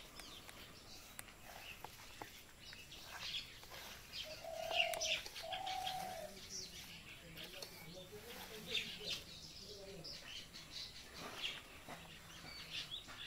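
Birds chirping repeatedly in short, high calls, with two longer, lower calls about four and a half to six seconds in.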